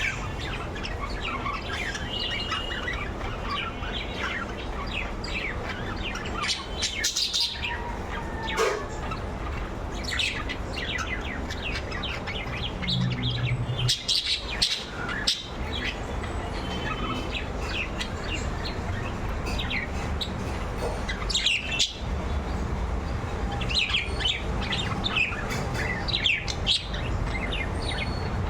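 Budgerigars chirping and chattering: many short, quick calls, some sweeping sharply up or down, over a steady low background rumble.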